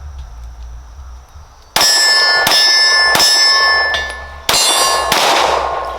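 Five pistol shots from a Glock 19 at an uneven pace, each followed by the ringing clang of a steel target being hit. The first shot comes about two seconds in, after a quiet start.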